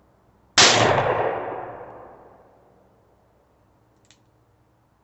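A single .38 Special shot from a Taurus Tracker .357 revolver, its report trailing off over about two seconds. A faint click follows about three and a half seconds later.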